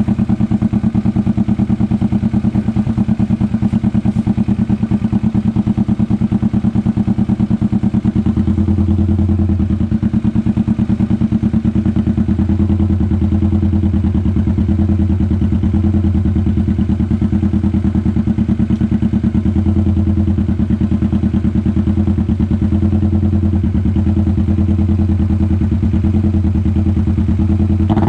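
Kawasaki Vulcan S 650's parallel-twin engine running steadily at idle through an Orion full-system aftermarket exhaust, a loud, even pulsing exhaust note.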